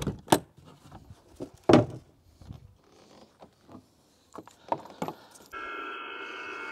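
Clicks and knocks of a hard plastic rack case's front cover being unlatched and lifted off, the loudest about halfway through the first two seconds. Then, about five and a half seconds in, an Icom IC-7300 HF transceiver's speaker comes on with steady band noise and several steady tones, tuned to 14.074 MHz USB, the FT8 data frequency.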